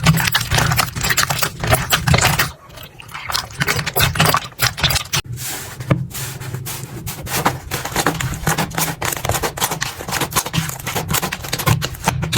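Slime being squeezed and poked by hand: dense, irregular crackling and popping clicks, with a short quieter gap about two and a half seconds in.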